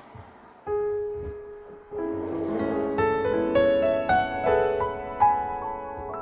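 Soft background piano music: a single note, then a chord, then notes stepping upward in a slow run.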